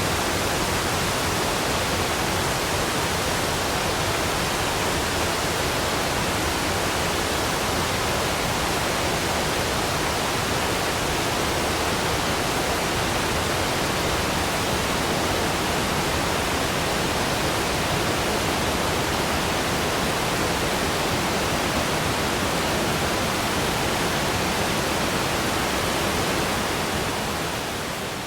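Waterfall rushing: a steady, even roar of falling water that fades down near the end.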